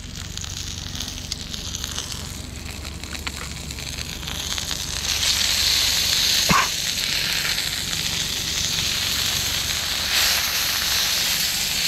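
Marinated meat sizzling in a frying pan. The frying hiss grows louder about five seconds in and then holds steady, with one short clink about six and a half seconds in.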